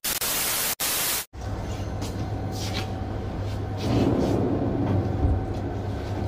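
A burst of TV-static glitch sound effect, a loud even hiss with a brief dropout, lasting about a second and a half and cutting off abruptly. A steady low hum follows, with louder muffled noise about four seconds in.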